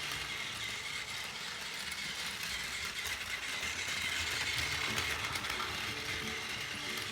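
Battery-powered Plarail Doctor Yellow toy train running on plastic track, its small motor and gears whirring steadily with a rattle of wheels over the rails. It grows louder in the middle as the train comes close, then eases off.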